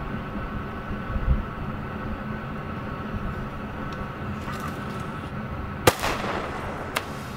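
A firework going off: one sharp bang about six seconds in, followed by a brief hiss as it shoots up, then a smaller pop about a second later, over a steady mechanical hum.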